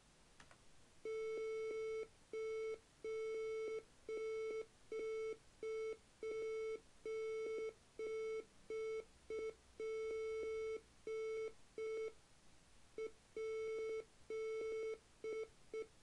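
A computer-generated Morse code tone, a single buzzy pitch keyed on and off in irregular groups of dots and dashes, spelling out "Congratulations Debbie". A single key click comes just before the tone starts.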